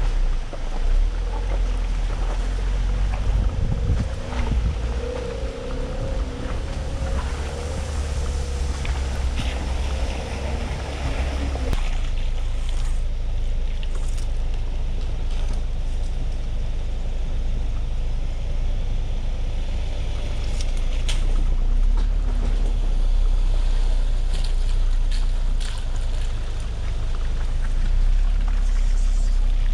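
A 4x4 pickup truck driving on an off-road trail: a steady low engine and drivetrain rumble with wind noise on the microphone. The sound changes abruptly about twelve seconds in.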